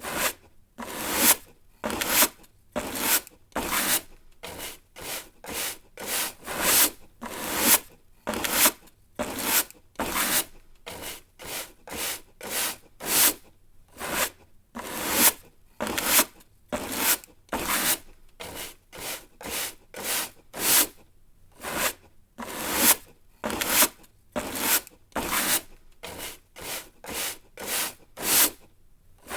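Straw broom sweeping in short, even strokes, about one and a half to two a second, each a brief scratchy brush followed by a short gap.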